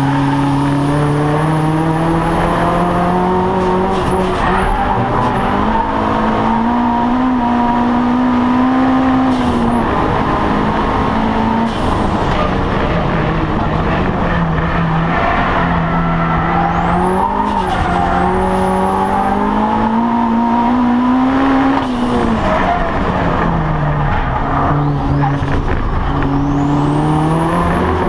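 Audi TT race car's engine heard from inside the cabin, driven hard round the circuit: the pitch climbs under acceleration and drops sharply at gearshifts and under braking, several times over. A faint high whine rises and falls with the revs.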